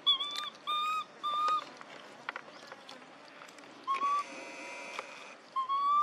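Infant long-tailed macaque crying with short, high, whistle-like coo calls. Three come in quick succession, then two more follow spaced out.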